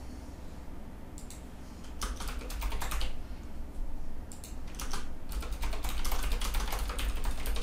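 Typing on a computer keyboard: several short runs of key clicks with pauses between, the longest run near the end.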